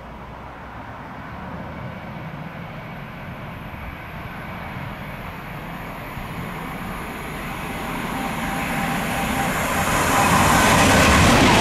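An approaching train, its noise building steadily louder throughout and growing brighter and sharper in the last few seconds as it nears.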